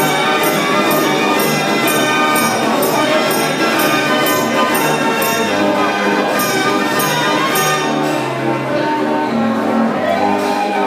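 Mechanical street organ (draaiorgel) playing a tune: sustained pipe tones with a steady beat of percussion strikes that drops out about eight seconds in.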